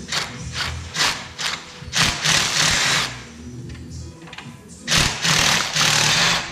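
A handheld power tool worked on the ATV's steering bolts in bursts: four short stabs, then runs of about a second, half a second and a second. Background music plays underneath.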